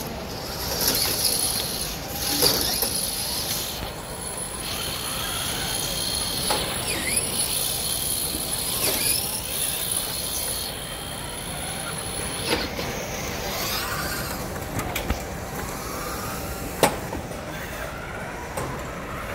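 Competition robots running on the field: a steady high electric-motor whine with short rising and falling glides, mechanisms clattering, and several sharp knocks, the loudest near the end, over a background of crowd chatter.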